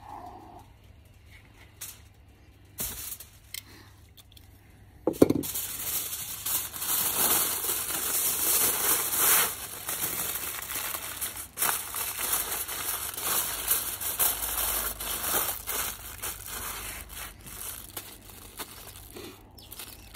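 Aluminium foil crinkling and crumpling as it is folded and pressed tightly around a smoked pork butt: the wrapping stage of the cook. It starts after a sharp thump about five seconds in and goes on busily from there.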